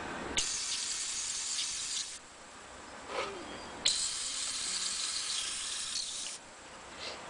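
Paint being sprayed in two bursts of steady hiss, each about two seconds long and starting and stopping abruptly, a little under two seconds apart; each burst opens with a short click. This is a base coat being sprayed onto a miniature.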